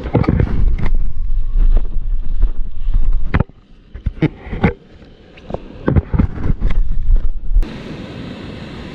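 Wind buffeting the microphone in gusts, with irregular sharp knocks and scrapes. Near the end it cuts abruptly to a steady, even rush.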